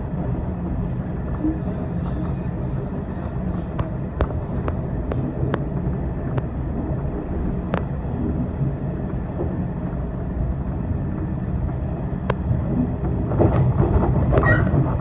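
415-series electric train running on the line: a steady low rumble of wheels and running gear on the rails, with scattered sharp clicks over it. The noise grows louder and fuller near the end.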